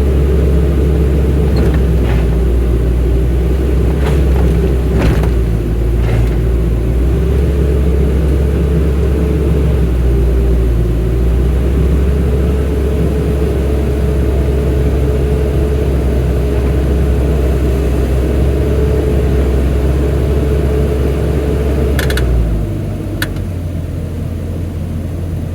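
Excavator's diesel engine running steadily under load, with a steady hydraulic whine and a few short clicks and knocks. About three seconds before the end the whine stops and the engine drops to a lower, quieter idle.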